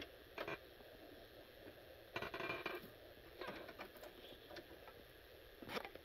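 Faint handling noise of a TRS-80 computer motherboard in its frame: a few light clicks and knocks, with a longer rattling stretch about two seconds in and another cluster of clicks near the end.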